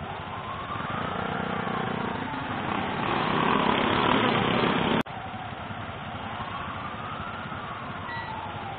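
Motorcycle engines idling in street traffic. A vehicle's engine noise swells louder over a few seconds, then cuts off abruptly about five seconds in.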